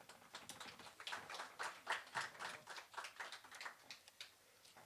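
Light, scattered applause from a small audience, a handful of people clapping, thinning out near the end.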